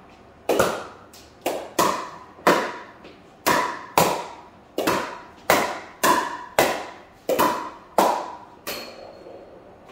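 Pickleball paddle repeatedly striking a plastic pickleball, mixed with the ball bouncing on a hardwood floor: a string of sharp, ringing knocks about two a second, stopping near the end.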